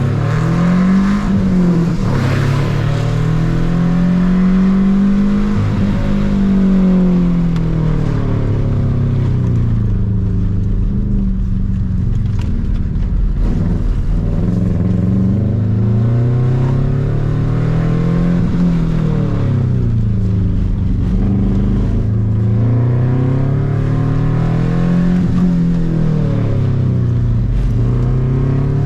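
A car's engine under hard driving on an autocross course, its pitch climbing as it accelerates and dropping as it slows, over and over.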